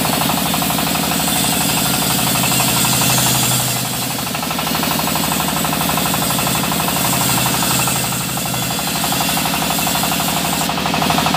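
Sawmill bandsaw rig running: a steady engine drone with fast, even knocking pulses under a hiss of machine noise.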